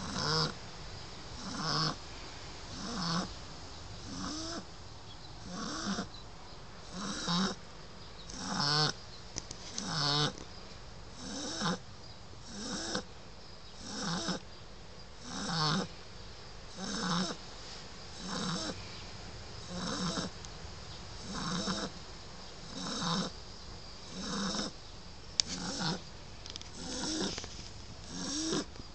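Nine-week-old Shar Pei puppy snoring in its sleep, one snore with each breath in a steady rhythm, about every second and a half.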